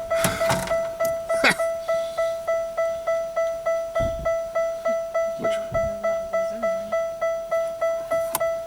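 1998 Pontiac Bonneville's electronic warning chime dinging over and over, about three chimes a second, with a few knocks from handling parts at the dash.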